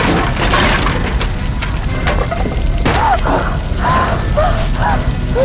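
Explosion sound effects: heavy booms and crashing debris in the first second over a deep continuous rumble.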